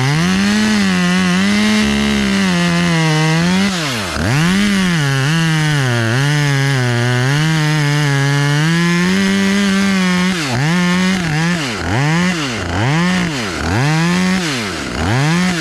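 Chainsaw cutting wood at high revs, the pitch sagging and recovering as it loads in the cut. From about ten seconds in it is revved and let off in quick repeated bursts, about once a second.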